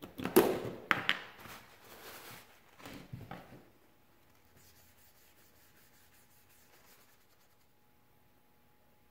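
Knocks and clattering handling noises of objects on a wooden workbench, with a plastic container being opened, over the first three to four seconds; then only faint room tone.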